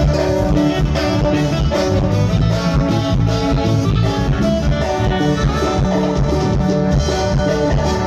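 Live band music played loud through a PA: drum kit, bass and electric guitars keeping a steady dance beat under a held melody line.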